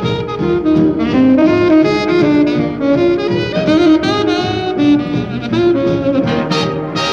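Background jazz music with saxophone and brass, a quick run of melodic notes at a steady loud level.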